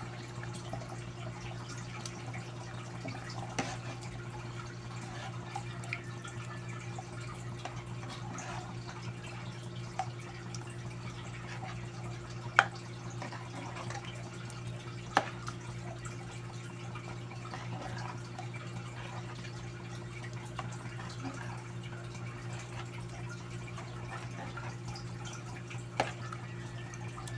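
A metal ladle stirring glutinous rice in coconut milk in a pot: liquid sloshing and dripping, with a few sharp clinks of the ladle against the pot, over a steady low hum.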